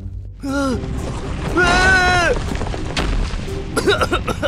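A cartoon character makes short vocal sounds, then a low boom comes about three seconds in, and the character coughs several times near the end.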